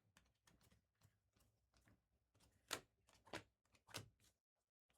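Near silence, with three faint short clicks from trading cards being handled.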